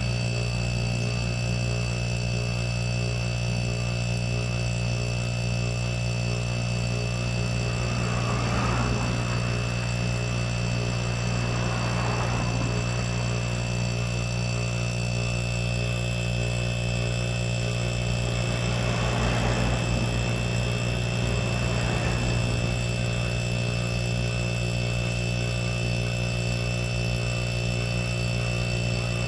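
Electric air compressor with a capacitor-start motor running steadily under load, a constant low hum with a thin high whine, as it pumps its tank pressure slowly up.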